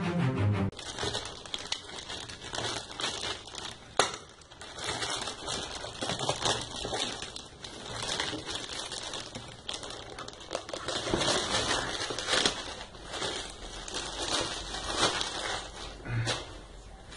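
Plastic shipping mailer crinkling and crackling as it is handled and opened, in uneven bursts of rustle. A bar of music cuts off under a second in.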